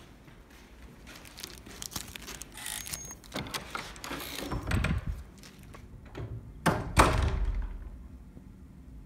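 Wooden dorm door with a lever handle and card lock being opened: the handle and latch click, the door is pushed open, then near the end it swings shut with a sharp heavy thud that dies away over about a second.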